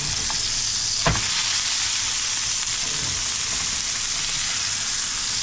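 Hamburger steak patties sizzling steadily in oil in a frying pan. About a second in, a single sharp clack as a patty is turned over with a spatula and drops back onto the pan.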